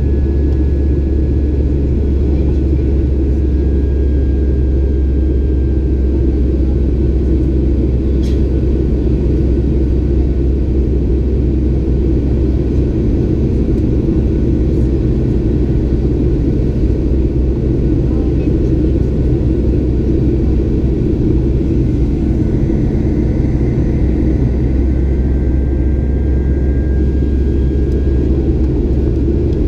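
Steady low rumble of a Boeing 737-800's CFM56-7B turbofan engines and rushing air, heard inside the cabin during the climb after takeoff.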